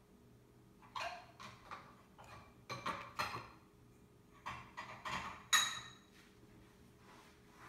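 Irregular light clicks and clatters of the blender's plastic switch parts and wires being handled, in a scattered run of short knocks with the loudest just after five seconds in.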